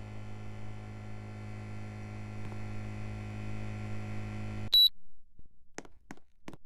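Air conditioner running with a steady hum that cuts off suddenly about three-quarters of the way through, with a single short high beep as it shuts off, the unit acknowledging a command. Three faint clicks follow.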